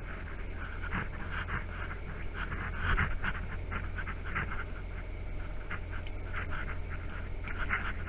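Truck engine running, heard from inside the cab as a steady low drone, with irregular short breathy hissing puffs several times a second over it.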